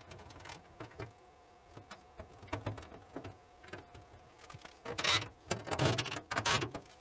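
Clothes dryer being reassembled by hand: scattered clicks and knocks of parts and fasteners being fitted, then a louder stretch of scraping and rattling about five seconds in.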